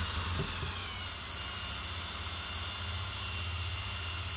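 Electric drill spinning a Chevrolet Gentra alternator on the bench, giving a steady motor whine with the alternator's fan noise. The pitch sinks slightly in the first second, then holds. This is a charging test: the alternator is spun with its main negative disconnected while the large test bulb stays lit, which shows it is generating.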